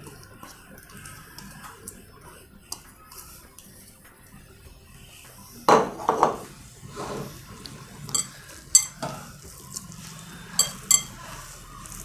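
A spoon clinking and scraping against a kitchen vessel as ground spinach paste is mixed into poori flour. The first half is quiet, then about eight sharp clinks and clatters come over the second half.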